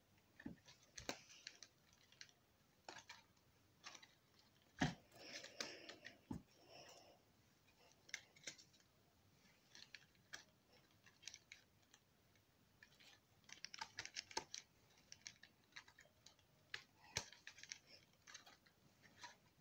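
Faint handling noise: scattered light clicks and crinkles as objects are moved about close to the microphone, with one louder knock about five seconds in and thicker spells of crinkling around five to seven and thirteen to fifteen seconds.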